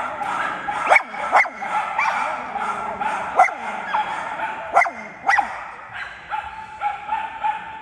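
A dog barking in short, sharp single barks, about six of them, in the first three-quarters, over a steady high whine.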